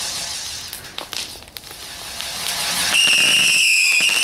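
Catherine wheel firework hissing as it sprays sparks, fading with a couple of sharp pops. About three seconds in, a whistling firework barrage goes off with a loud, shrill, slightly wavering whistle, set off by the Catherine wheel's sparks.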